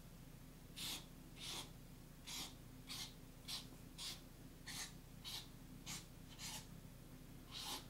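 Felt-tip marker drawing straight lines on a paper pad: about a dozen short scratching strokes, a little under two a second, as each line is drawn.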